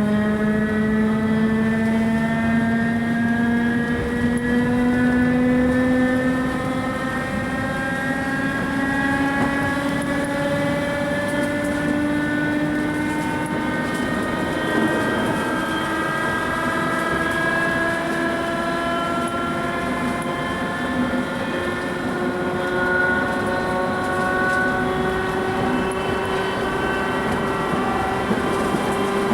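Worn English Electric traction motors of a 2EPB electric multiple unit whining under power, over the rumble of the train. The pitch climbs steadily as the train gathers speed, shifts about halfway through, then keeps rising.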